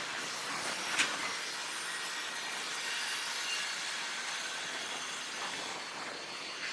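Steady outdoor background hiss from a canal-side worksite where a Shinkansen car is being loaded onto a barge, with one sharp knock about a second in.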